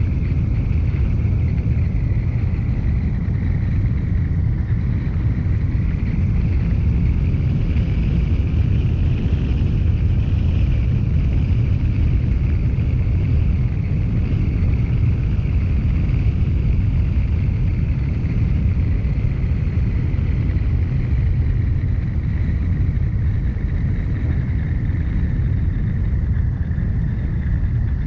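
Car driving at steady speed: a continuous low rumble of road and engine noise, with a faint high whine that wavers slightly in pitch and starts to fall near the end.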